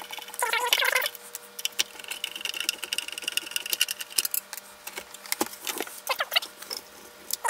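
Squeaking and scraping as a screwdriver backs screws out of a UPS's sheet-steel case, including one long steady squeal. Near the end come clicks and short squeaks as the metal cover comes off.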